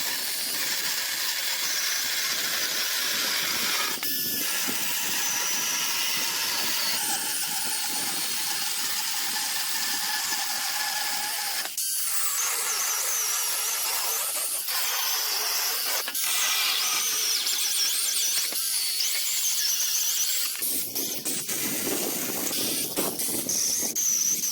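Small battery-powered mini chainsaw running with a high-pitched motor whine and chain rasp as it cuts wood, in several stretches that change abruptly.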